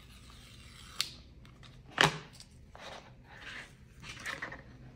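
Paperboard Apple Watch band box being opened by hand: a sharp click about a second in, a louder snap about a second later, then card and paper sliding and rustling as the box comes open.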